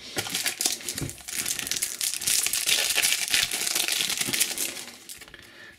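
Metallised foil wrapper of a trading-card booster pack crinkling and crackling as it is opened and pulled apart by hand, fading away near the end.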